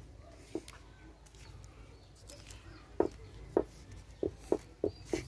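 Bonsai wire being wound by hand around a taped graft on a small tree trunk. Short soft clicks and taps come irregularly from about three seconds in, the first two the loudest.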